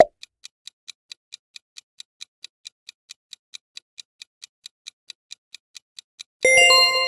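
Countdown-timer sound effect: quick, even clock-style ticking, about four to five ticks a second. Near the end it gives way to a ringing chime, the signal that the countdown has reached zero.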